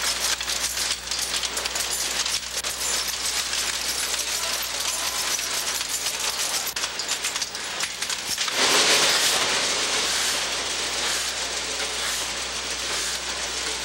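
Dense mechanical clatter of printing machinery, a rapid run of fine clicks and rattles. About eight and a half seconds in, it grows louder and hissier.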